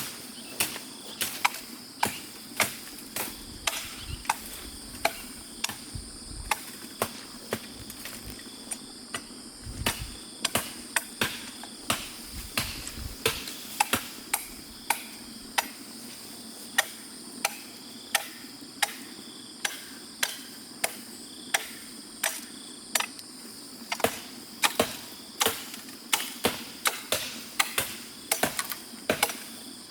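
Repeated sharp blows of a hand tool striking wood or bamboo, about one to two a second, sometimes in quick pairs, as trellis poles are worked. A steady high-pitched whine runs underneath.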